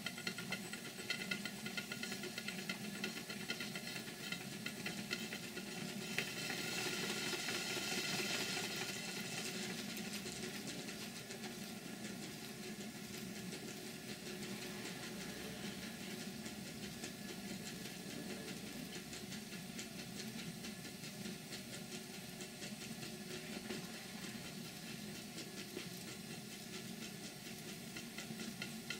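Stuart Twin Victoria twin-cylinder model steam engine running on live steam: a steady rapid beat from the engine with a continuous hiss of steam. The hiss swells louder about six to ten seconds in, then settles.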